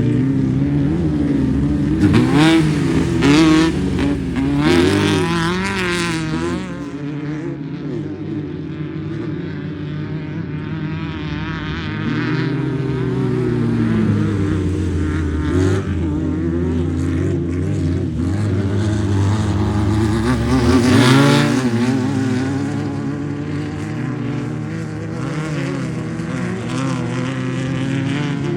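Off-road racing vehicles' engines running and revving, the pitch swinging up and down repeatedly. The revving is heaviest a few seconds in and again about twenty seconds in, with a steadier, lower engine drone between.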